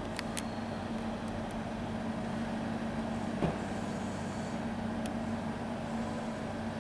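ÖBB Railjet train rolling slowly along the platform track, driving-trailer end first: a steady hum and rumble with a few faint clicks and one short knock about three and a half seconds in.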